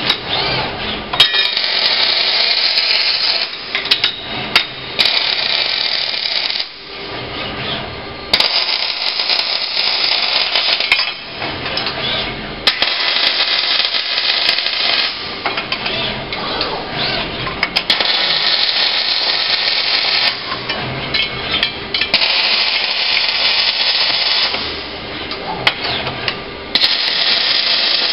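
Robotic MIG welding arc crackling in runs of a few seconds, with short pauses between welds. Sharp metallic clicks and clanks of toggle clamps and steel parts being loaded into a welding fixture.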